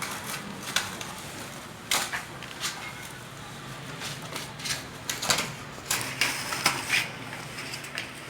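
Siamese kitten scratching with its claws: irregular short scratchy strokes, some in quick clusters.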